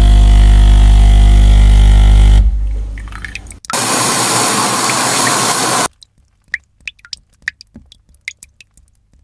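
Coffee machine's pump running with a loud, steady hum that fades out about two and a half seconds in, followed by a loud hiss for about two seconds that cuts off suddenly, then faint drips and small clicks.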